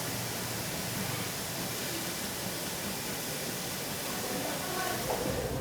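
Steady, even hiss of steam at a market food stall, with a faint low hum beneath it.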